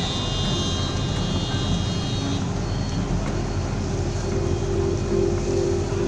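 Steady din of city street traffic. A held tone comes in over it about four seconds in.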